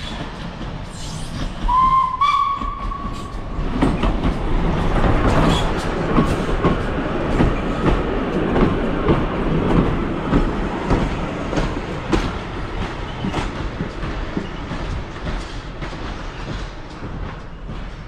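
Heritage steam train: one short whistle blast about two seconds in, then the train passes close by, its wheels rumbling and clattering on the rails. It is loudest in the middle and eases off toward the end.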